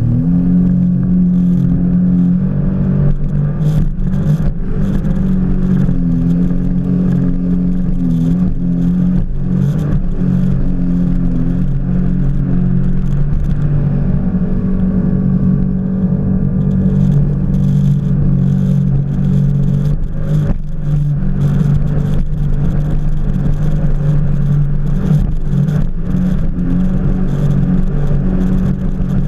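Jet ski engine running at speed, a steady loud drone whose pitch dips slightly now and then, with frequent short thumps and splashes of the hull and spray on the water.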